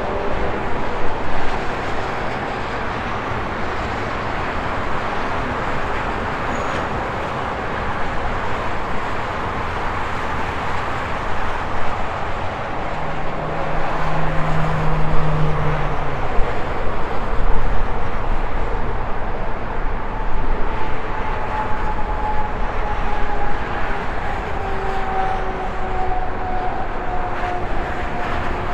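Steady highway traffic: cars and trucks passing, their tyre rush swelling and fading. Partway through a low engine drone holds for a few seconds, and near the end a whine slowly falls in pitch as a vehicle goes by.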